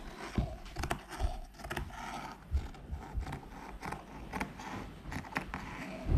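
Scissors cutting through fabric laid on a tile floor: a string of irregular snips and scrapes.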